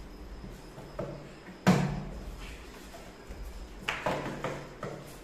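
A small glass bottle tossed in a bottle-flip game, landing on a wooden tabletop with a sharp knock about two seconds in that rings on briefly, followed by a few lighter knocks and clinks near the end.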